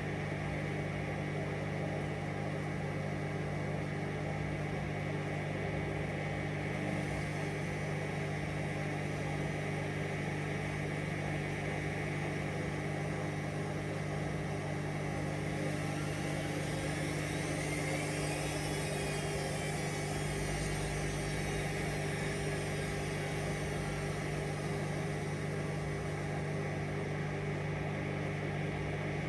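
Hoover Vision Dynamic washing machine on a spin-only cycle, the drum spinning at a steady speed with an even motor hum. It runs smoothly, with no banging or knocking. A faint high tone rises and falls about midway.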